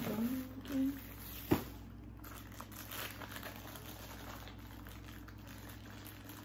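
Packaging crinkling and rustling as a new item is unwrapped by hand, with a sharp click about a second and a half in.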